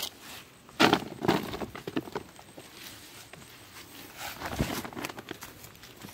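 Irregular crackling and rustling as a woven plastic bag and a nylon cast net are handled, with the sharpest crackle about a second in.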